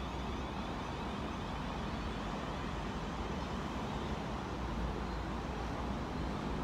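South Western Railway electric multiple unit running away down the line, heard as a steady distant rumble and hiss.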